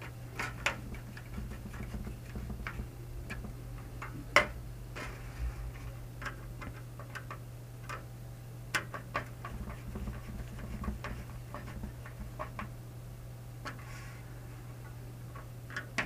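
Case fan screws being driven with a hand screwdriver into a fan's plastic frame: small irregular clicks and ticks, with a couple of sharper taps, over a steady low hum.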